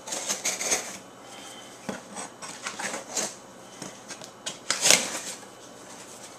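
Folding knife slitting the packing tape along a cardboard box's seam, with scraping and crackling of tape and cardboard in short bursts, then the box flaps pulled apart with a loud cardboard scrape about five seconds in.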